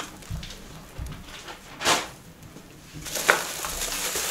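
Plastic bubble wrap rustling in short bursts as a wrapped parcel is handled and lifted, with a couple of soft low thumps in the first second.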